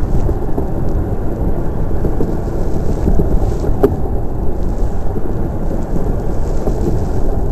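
Steady rumbling noise of a DN iceboat sailing across smooth ice: the runners running over the ice mixed with wind buffeting the microphone. A single sharp knock sounds about four seconds in.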